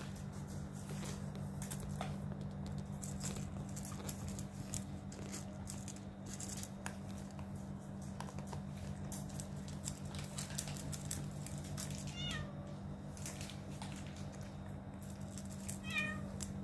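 A cat crunching dry kibble from a metal bowl, a dense run of small crisp clicks over a steady low hum. A short meow comes about twelve seconds in and another near the end.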